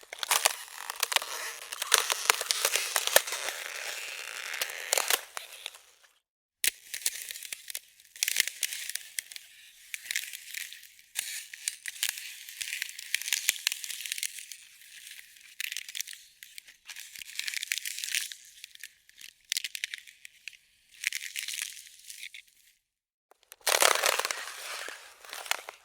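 Ice cracking and breaking: a dense run of sharp cracks and crunches. It comes in three stretches with brief silent breaks about six seconds in and near the end, and the long middle stretch is thinner and higher than the other two.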